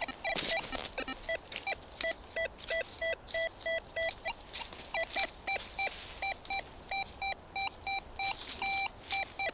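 Rutus Alter 71 metal detector beeping in short repeated tones, about three a second, as the search coil passes back and forth over a buried target. The pitch steps a little higher partway through, with one longer, higher tone near the end. The detectorist reads this signal as a can or a bottle cap.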